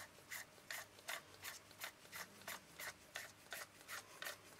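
Rhythmic rubbing strokes, about three a second, from hand work on a camera lens.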